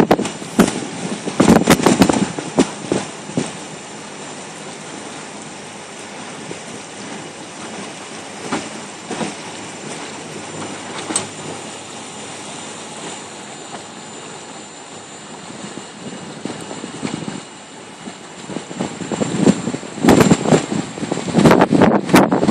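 Rushing wind and water noise from a moving boat, with heavy wind buffeting on the microphone for the first couple of seconds and again near the end.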